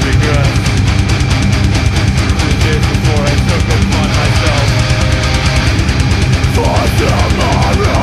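Live metalcore band playing: distorted guitars, bass and fast, driving drums, with the vocalist's voice through the microphone over the top, strongest near the end.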